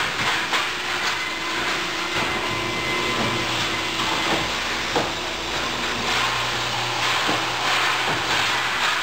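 Machinery of an automated robotic production line with ABB industrial robot arms running: a steady mechanical hiss and hum, with several sharp clunks of parts and fixtures, the loudest about five seconds in.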